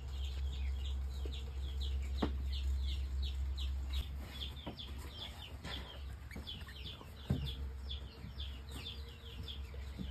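Birds chirping: a steady run of short, high, falling chirps, about three or four a second, over a low steady hum, with a few sharp knocks.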